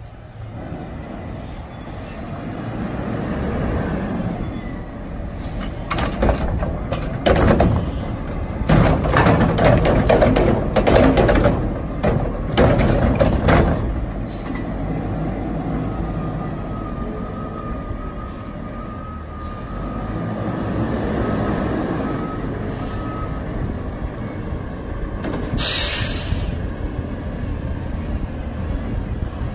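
Garbage truck with a Curotto-Can automated arm emptying a yard-waste cart: the diesel engine revs as it pulls up, then about eight seconds of loud clattering and banging as the cart is tipped and shaken into the hopper. A steady high whine follows, and a short burst of air-brake hiss comes near the end as the truck moves off.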